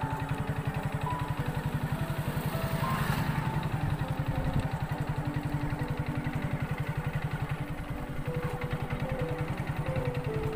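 Background music: a melody of short stepped notes over a fast, steady low pulse of about ten beats a second.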